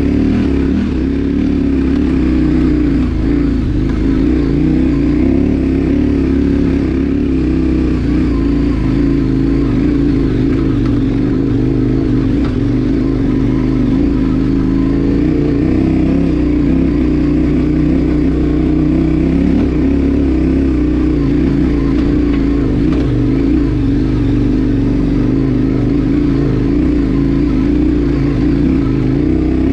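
KTM 1090 Adventure's V-twin engine running at low, fairly steady revs, its pitch wavering a little as the bike climbs a rough gravel track.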